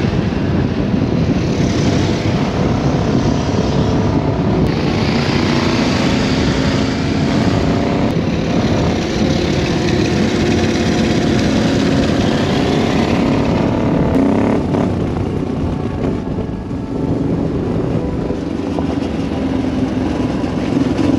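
Honda Transalp 700's V-twin engine, fitted with a decat header, running at road speed, heard from on board with wind rush; the revs climb several times as the bike accelerates.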